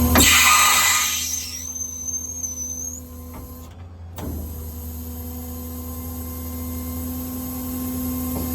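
Auto Crane hydraulic air compressor on a diesel service truck being switched on: a hiss for about a second and a half and a brief whistle, then a steady mechanical hum as it runs.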